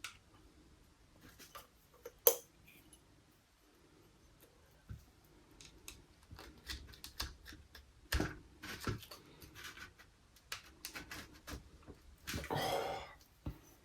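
Circlip and circlip pliers clicking and scraping against the bore of a motorcycle brake master cylinder as the circlip is worked into its groove: scattered small sharp clicks, the sharpest about two seconds in and a busier run of them later, with a brief rustling rush near the end.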